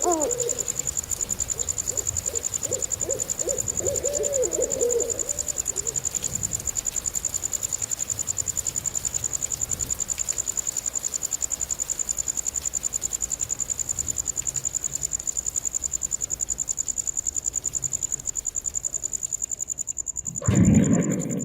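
High insect-like chirping with a fast, even pulse, and a run of short pitched animal calls in the first few seconds. About twenty seconds in, a louder low rumbling sound starts suddenly.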